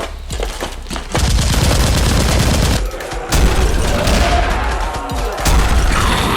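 Rapid, sustained gunfire sound effects, starting about a second in, with a short break around three seconds in before the firing resumes.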